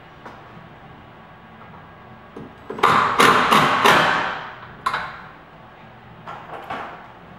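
Cordless drill-driver run in short bursts, backing a screw out of the door frame's top rail. The longest run of bursts comes about three seconds in, with shorter ones near five and six and a half seconds.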